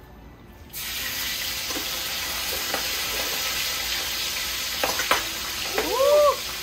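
Seasoned blue crab pieces going into a pan of hot oil: a sizzle starts suddenly under a second in and carries on as a steady deep-frying hiss. A couple of sharp clicks come about five seconds in, and a short rising-and-falling pitched sound near the end.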